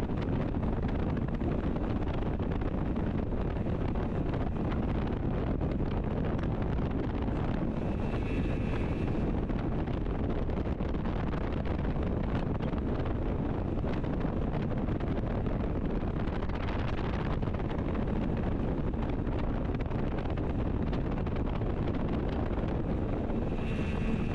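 Wind buffeting the microphone aboard an open speedboat under way at speed, with the outboard motor and water noise blended into one steady rush.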